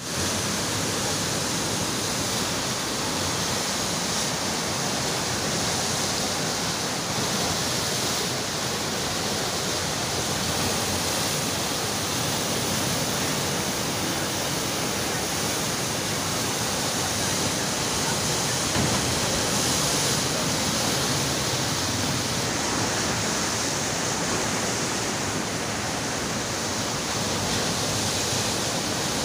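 The Neelum River in flood, a fast, muddy, churning torrent, rushing with a steady, even noise of water.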